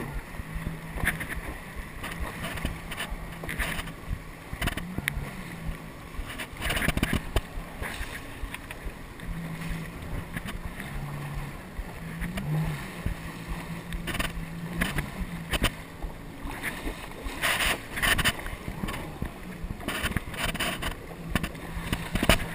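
Yamaha WaveRunner personal watercraft's engine running at low speed, a steady low hum with small rises in pitch as the throttle changes, under irregular splashes of water against the hull.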